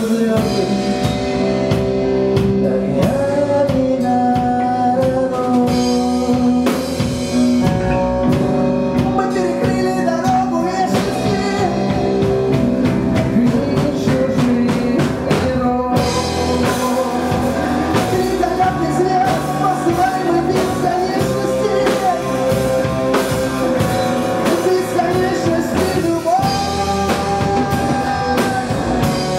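Rock band playing live: electric guitar, bass guitar and drum kit, with no sung words.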